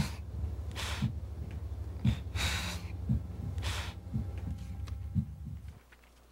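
Film soundtrack effect: a low throbbing drone with a heartbeat-like pulse about once a second, with a man's heavy breaths between the beats. It cuts off abruptly near the end.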